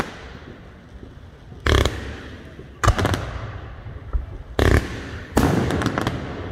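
Aerial fireworks shells bursting: four loud bangs a second or so apart, each rolling away in an echo, the last a longer cluster of reports.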